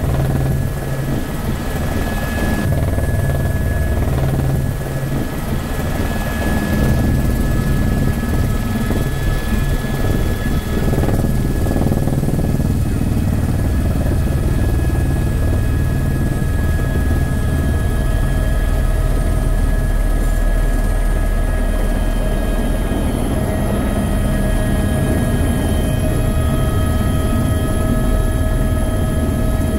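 Airbus H125 helicopter heard from inside its cabin: the rotor and turbine running steadily, with several thin, steady high-pitched whine tones over the low rotor noise.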